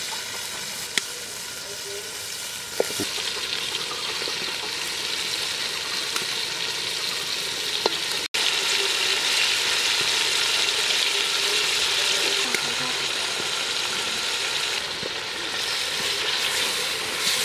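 Spice paste and raw chicken pieces sizzling in hot oil in an aluminium pot, stirred with a wooden spatula. The steady sizzle gets louder after a sudden cut about eight seconds in, and a few light knocks come before the cut.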